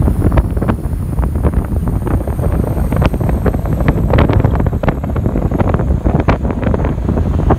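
Heavy wind buffeting the microphone: a loud, continuous low rumble broken by many sharp crackles.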